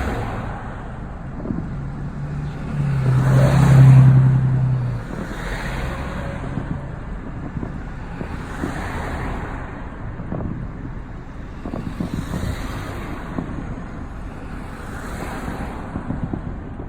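Outdoor street noise: road traffic with vehicles passing every few seconds, and a low engine drone that swells loudest about three to five seconds in.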